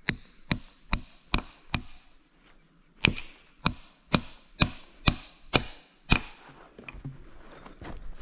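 A claw hammer drives a steel nail into a tree trunk to make footholds for climbing: about a dozen sharp blows at roughly two a second, five, then a short pause, then seven more. The blows stop a little after six seconds in.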